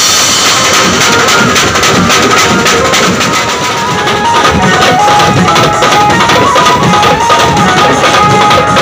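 A banjo party band playing loud, fast music: rapid drumming on a set of toms with cymbal crashes, and a high melody line of held notes stepping up and down over the drums.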